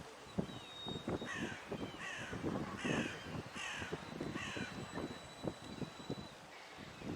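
A bird giving five harsh, caw-like calls in quick succession, about one every second, over wind buffeting the microphone.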